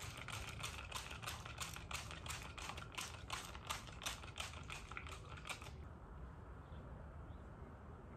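Purple trigger spray bottle misting the locs in a run of about twenty quick hissing squirts, which stop about six seconds in.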